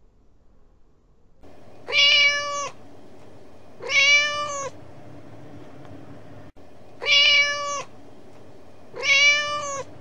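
Domestic cat meowing four times in two pairs, each meow under a second long, over a faint steady hiss from the recording.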